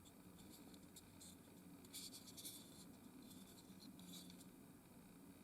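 Near silence: room tone with a few faint scuffs of plastic parts being handled and fitted together, twice about two and four seconds in.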